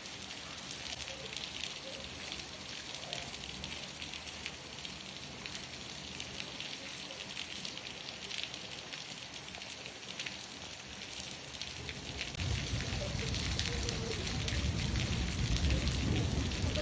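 Steady rain, a hiss with the patter of many separate drops. About twelve seconds in, a low rumble of thunder comes in and grows.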